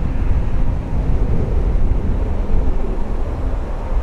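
Boeing 777 jet airliner's engines rumbling, mixed with wind buffeting the microphone.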